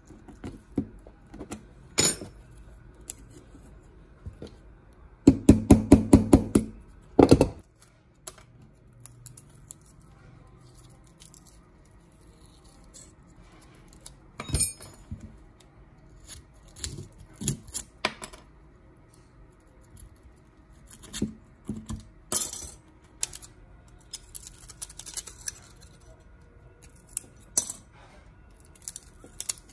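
Hand-work on small metal parts: scattered clicks and clinks, with a quick run of about a dozen rapid knocks about five seconds in, ending in one heavier knock.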